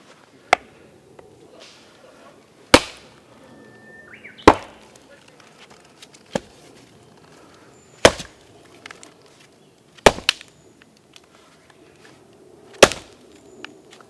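Gränsfors Bruk Wildlife hatchet, a small hatchet with a 400 g head, chopping into firewood to split it: six sharp wooden strikes about two seconds apart, with a couple of lighter knocks between them.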